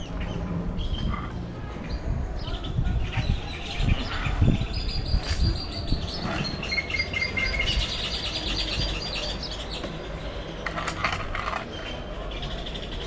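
Small birds chirping and twittering in quick repeated calls and short trills, over a low outdoor rumble. A few dull thumps come about three to five seconds in.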